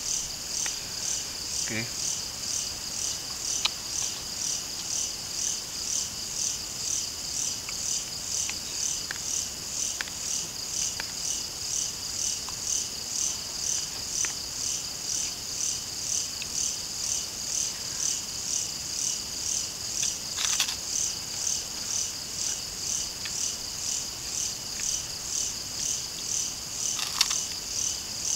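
Night insects chirring in a steady, evenly pulsing high-pitched chorus, with a few light clicks of a spoon against a plate.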